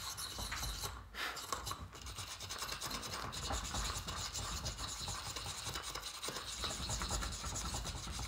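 Rapid, continuous scratching and rubbing as small shiny parts of a circuit kit are scuffed by hand until they are no longer shiny, with brief breaks about a second and two seconds in. The scuffing is meant to remove a surface coating that the builder guesses keeps electricity from flowing well.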